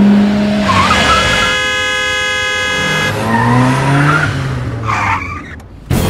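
Car driving in traffic with a tire squeal and a long blast of a car horn. A sudden thump near the end marks the car jolting to a halt.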